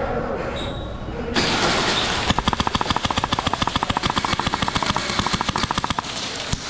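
Airsoft rifle firing on full auto: a long, rapid stream of evenly spaced shots starting about two seconds in, with a brief pause near the end before firing resumes.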